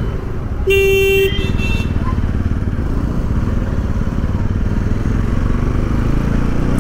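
Bajaj Pulsar NS200's single-cylinder engine running at low speed in slow traffic, a steady low rumble. A vehicle horn honks once, briefly, about a second in.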